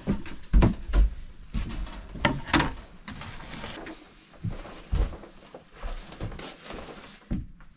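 Footsteps and knocks on wooden boards in a small log room, with the rustle of a heavy canvas bag being lifted and handled; a few sharp thumps stand out.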